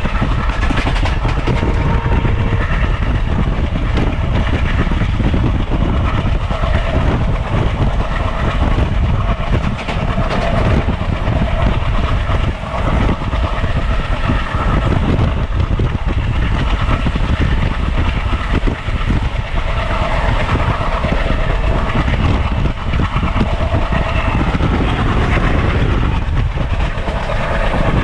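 A train running on the track: a steady, loud rumble with the repeated clatter of wheels over the rails.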